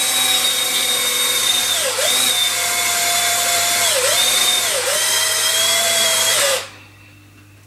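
Cordless drill running with a larger bit, boring out the hole in the base of a wooden chess pawn. Its motor whine dips briefly in pitch three times, then stops about six and a half seconds in.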